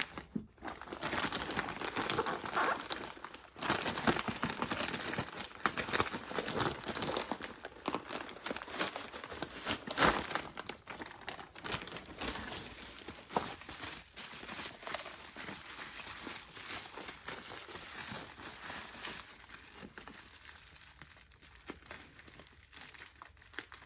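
Plastic shipping bag and packaging being handled and pulled open, crinkling and rustling irregularly with sharp crackles, busiest in the first half and tapering off toward the end.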